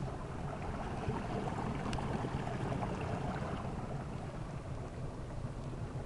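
Water running beneath the ice of a frozen waterfall: a steady, even rush of water noise.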